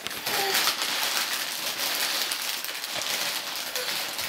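Crinkly candy wrapper being pulled and torn open by small hands, a steady crackling rustle.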